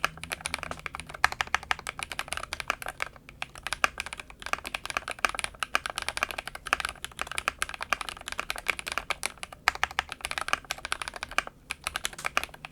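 Fast typing on an Akko ACR 75 mechanical keyboard with an acrylic case and FR4 plate, its EVA foam removed: a steady stream of clacky keystrokes with a hint of hollowness, broken by a few short pauses.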